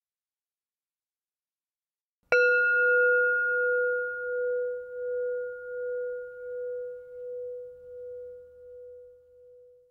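Silence, then about two seconds in a brass singing bowl is struck once with a wooden striker and rings on, its tone wavering in slow pulses as it fades almost to nothing by the end. It is the closing bell that marks the end of the meditation practice.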